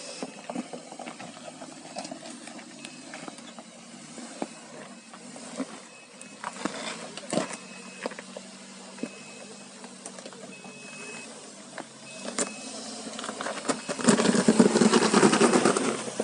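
Suzuki Jimny JB74's 1.5-litre four-cylinder engine pulling the vehicle up a rough off-road climb, with scattered sharp knocks and clicks from the underside and tyres. Short high beeps repeat now and then, and about two seconds from the end the engine runs much louder under heavy load for about two seconds.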